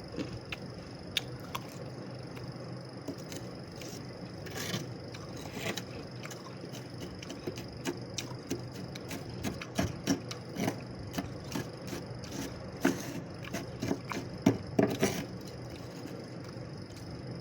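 Freezer frost crunching and scraping in short irregular strokes, growing busier and louder in the second half, over a steady faint high whine.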